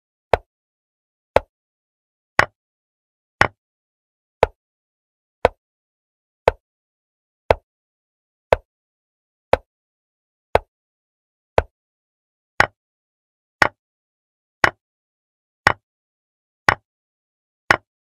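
Chess move sound effects from a digital chess board: a short, sharp click of a piece being set down for each move, evenly spaced at about one a second.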